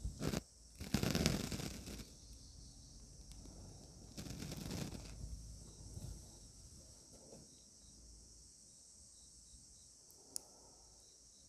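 Cloth of a monk's robe rustling in three brief bursts as he moves his hands from a palms-together pose, over a faint steady chirring of crickets; a single sharp click near the end.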